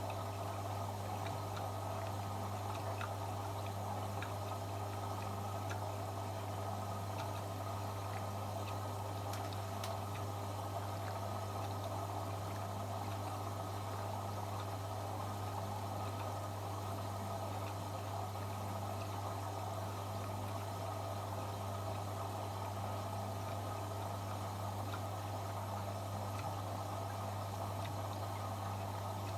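AEG Öko-Lavamat 73749 washing machine running early in a 95°C boil wash, with water flowing into the machine over a steady low hum.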